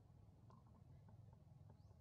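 Near silence: a low steady hum, with a few faint clicks and one short, faint rising chirp near the end.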